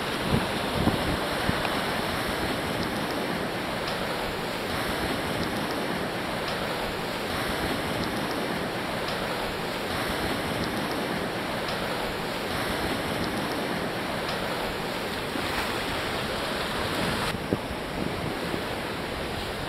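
Steady wash of ocean surf on a beach, with wind buffeting the microphone in low gusts and a few short bumps near the start.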